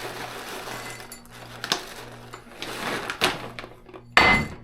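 A utensil scraping and clinking against a dish as wet dog food is scooped and mixed, with a few sharp clinks and a loud clatter near the end.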